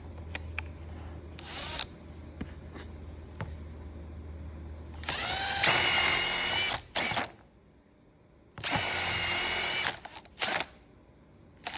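Power drill running in two main bursts of about a second and a half each, its motor pitch rising as it spins up and then holding steady, with a few short trigger blips before and after.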